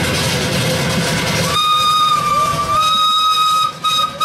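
Miniature train's whistle blowing, starting about one and a half seconds in with a long steady high note, then breaking into shorter toots near the end. Before it there is a steady rushing, rumbling running noise.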